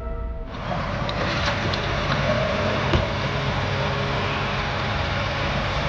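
Music cuts off about half a second in, giving way to steady car and road noise with a few light knocks.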